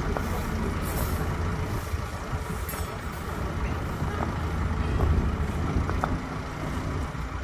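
Hidromek 102S backhoe loader's diesel engine running steadily while the machine stands still, a low continuous engine sound that swells slightly about five seconds in. A few faint clacks of concrete paving stones being handled come through now and then.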